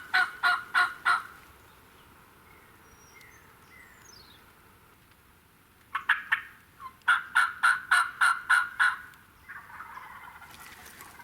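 Turkey yelping: a short run of about five evenly spaced, loud notes at the start, then a longer run of about ten notes about six seconds in. Faint songbird chirps sound in the pause between.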